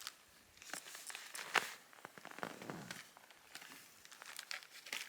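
Irregular crinkling and crackling, with scattered sharp clicks, the loudest about one and a half seconds in.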